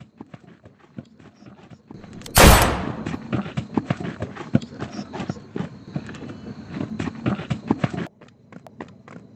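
Footsteps of several people walking in step over dry, gritty ground, a dense run of crunches and knocks, with one loud bang about two and a half seconds in. The footsteps drop away sharply about eight seconds in.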